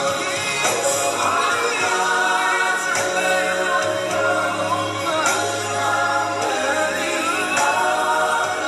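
Gospel music with a choir singing and a steady beat.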